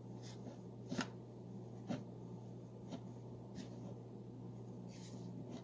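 Hands rubbing butter into flour in a mixing bowl: faint, soft rustling with a few light knocks, over a steady low hum.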